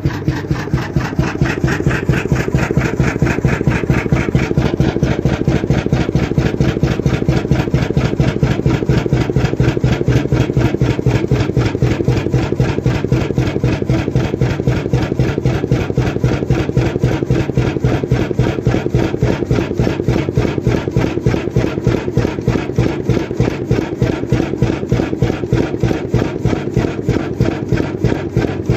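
Krimo single-cylinder 21.9-litre hot-bulb oil engine running steadily at its slow working speed, a regular, even beat from the big single cylinder. It grows a little louder about a second in.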